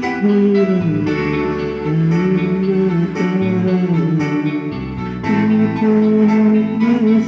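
Instrumental music with guitar: a plucked-string accompaniment under a sustained melody line that bends up and down in pitch, with no singing.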